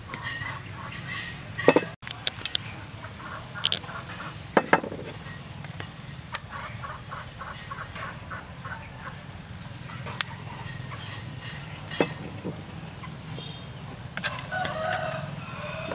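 Metal spoon clicking and scraping against a clay mortar as ingredients are spooned in and stirred, with a few sharp clicks spread through, over a steady low hum.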